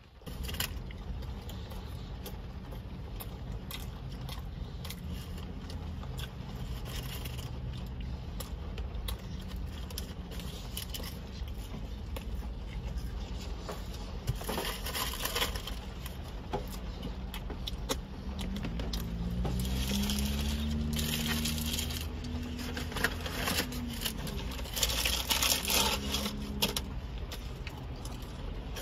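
Steady low rumble of a car cabin, with several bouts of crinkling and rustling from a wrapper being handled in the back seat.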